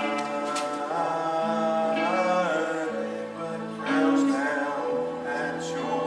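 Slow worship music in a church: a voice singing over long, held chords.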